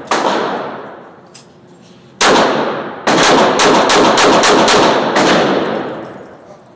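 9mm handgun shots echoing in an indoor range: one shot at the start, another about two seconds in, then a rapid string of about ten shots in two seconds, each with a long ringing echo.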